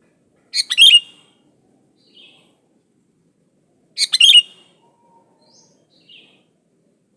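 Sooty-headed bulbul (kutilang) calling: two short, loud bursts of chattering notes about three and a half seconds apart, with a few faint softer notes in between.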